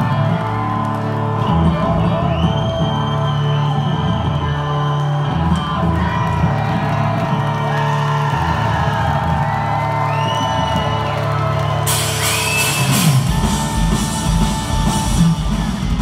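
Live amplified electric bass solo with long held low notes, in a large hall, with whoops from the crowd; about three-quarters of the way through, crashing cymbals and drums come in.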